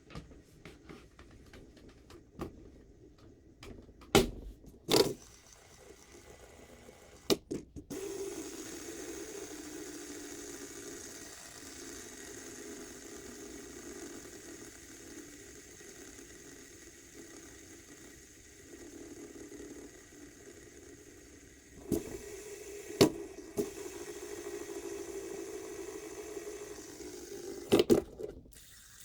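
Fidget spinner flicked with a few clicks, then whirring steadily on its bearing for about fourteen seconds and fading a little. It is flicked again with a couple of clicks and whirs on until more clicks near the end.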